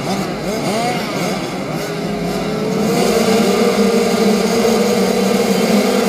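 A row of 65cc two-stroke motocross bikes revving on the starting line, several engines blipping up and down at first, then held together at steady high revs from about three seconds in, waiting for the gate to drop.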